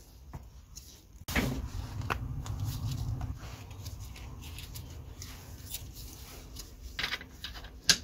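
Hand tools working the solenoid terminal nut of a Denso starter motor on a workbench: scattered metal clicks and clinks over a low steady hum, with the sharpest click near the end.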